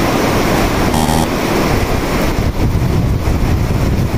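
Heavy rain pouring onto a paved yard, a steady hiss, with wind buffeting the microphone in low rumbles that grow stronger after about two seconds.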